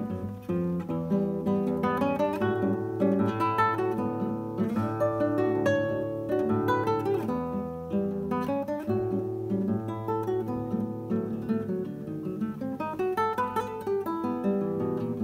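Classical guitar played solo with the fingers: a quick choro, a running melody of plucked notes over a bass line.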